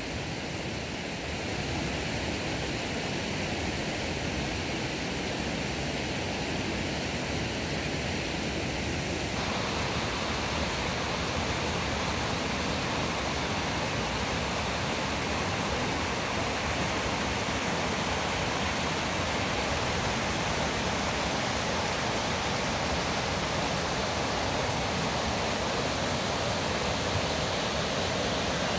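Shallow mountain stream running fast over rocks and boulders: a steady rush of water, which grows fuller about a third of the way in.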